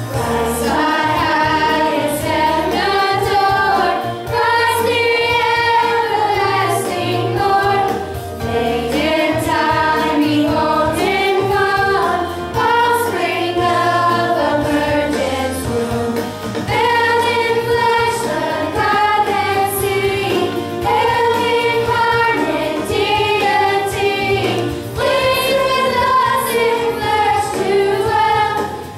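A group of young voices singing a song together over a steady instrumental accompaniment.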